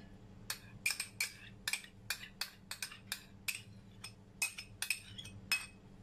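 Light clinks of a small ceramic bowl and a metal fork against a china plate, a quick irregular string of small clicks about three a second, as oyster sauce is emptied out of the bowl.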